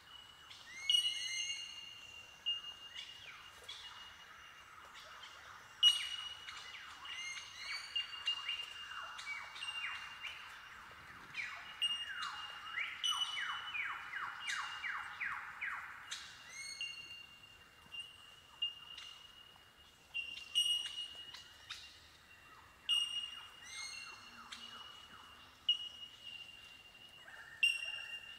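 A colony of Bell Miners (bellbirds) giving their ringing, bell-like 'tink' calls, many birds overlapping into a steady chiming chorus on much the same high pitch. From about ten to sixteen seconds in, a rapid run of lower sliding notes joins it.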